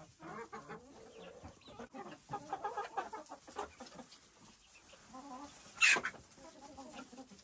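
Hens clucking, a string of short calls, with one short, sharp, loud sound about six seconds in.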